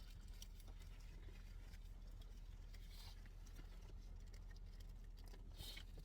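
Near silence: a low steady hum with faint scattered clicks and soft rustles.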